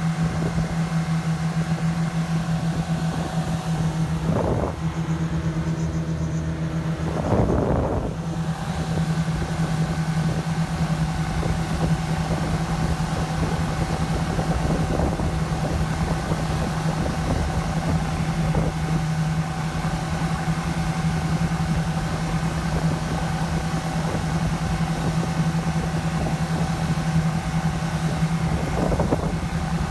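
Yamaha 242 jet boat's engine running at a steady speed, an even drone with two brief louder surges about four and seven seconds in.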